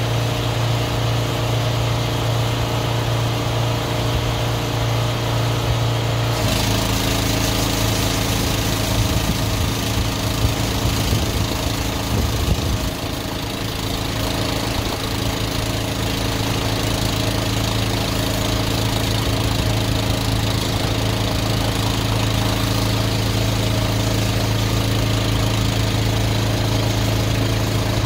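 Drain jetter's engine running steadily. About six seconds in the high-pressure water jet opens and a hissing spray joins the engine note, which shifts slightly as the pump takes the load.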